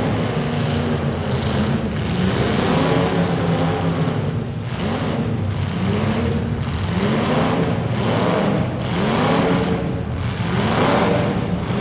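Demolition derby car engines running hard, revved up and let back down over and over, about once a second.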